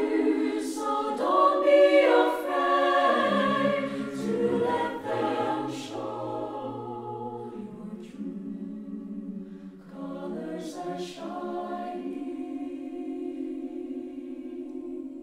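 Mixed-voice choir (sopranos, altos, tenors, basses) singing a slow ballad in several parts. It is fuller and louder for the first few seconds, then grows softer and settles into a quiet held chord near the end.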